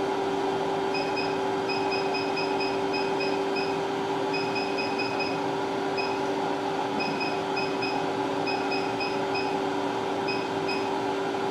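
CTL69 cryolipolysis machine running with a steady, even hum, overlaid by short high electronic beeps in quick runs of several at a time, the key beeps of its touchscreen as the treatment settings are stepped through.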